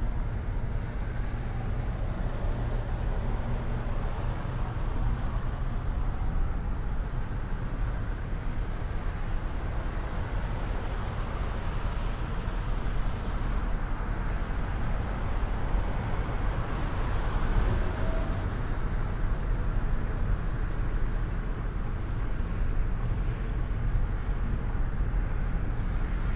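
Steady low rumble of a car driving, engine and tyre noise heard from inside the car, with street traffic noise that swells a little around the middle.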